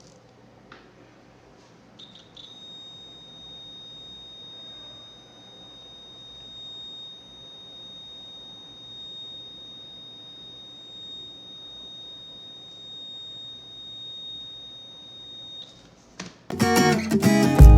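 Digital multimeter's continuity-test buzzer giving one steady, high beep, held for about thirteen seconds after a short blip: the crimped cable conducts and the wire is not broken. Near the end, guitar music starts.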